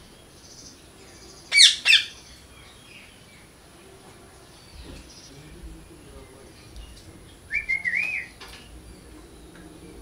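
Parrot calls: two loud, sharp shrieks in quick succession about one and a half seconds in, then a short warbling call of several quick notes near the end.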